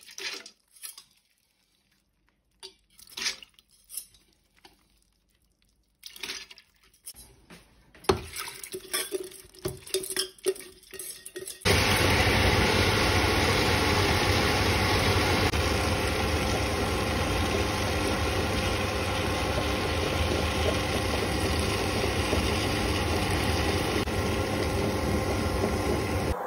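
Scattered clicks and rattles as soaked urad dal is tipped into the drum of a tabletop wet grinder. About twelve seconds in, the grinder switches on and runs steadily, its rotating drum and granite roller stones grinding the dal into idli batter.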